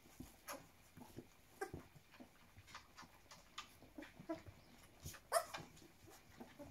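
Two-and-a-half-week-old puppies making short, faint squeaks and whimpers while they nurse and crawl, with one louder squeal about five seconds in.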